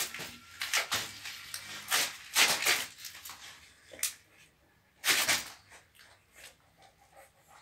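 A pit bull mother and her newborn puppies nursing, with a string of short, irregular breathy noises from the dogs. The longest ones come about two and a half and five seconds in.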